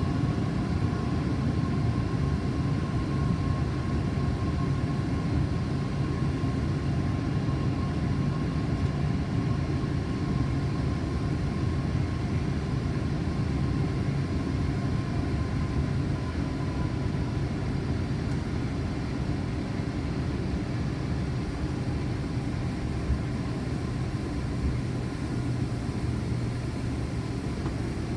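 Steady cabin noise inside a Boeing 767-400ER: the hum of its jet engines and rushing air, with a faint steady whine that eases off slightly partway through.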